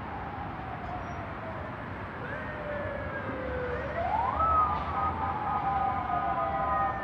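Emergency vehicle siren wailing from the city below. Its pitch slides slowly down, jumps back up about four seconds in, then slides down again, over a low rumble of city traffic.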